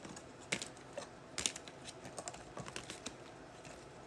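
Scattered light clicks and taps of trading cards being handled and stacked on a table, a few a second.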